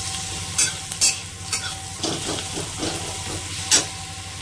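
Sliced onion, green chillies and grated garlic sizzling in hot oil in a steel kadhai, while a metal spatula scrapes and clinks against the pan several times as it stirs.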